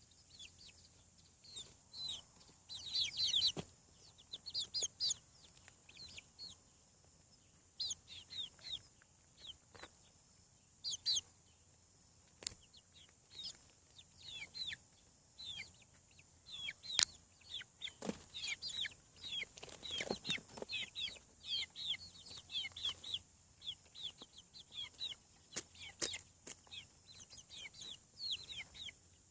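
Chicks peeping: many short, high chirps, some in quick runs, with a few sharp clicks among them.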